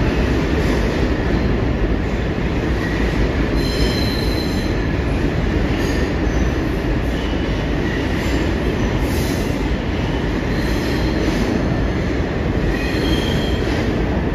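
IRT subway train of R62 cars on the 3 line moving through the underground station: a steady low rumble of steel wheels on rail, with several brief high-pitched wheel squeals coming and going, the strongest about four seconds in and again near the end.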